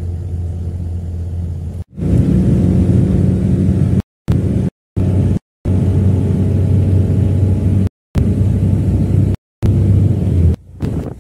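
Steady low engine and road rumble heard from inside a moving sleeper bus. About two seconds in it gets louder, and several abrupt silent cuts break it into short pieces.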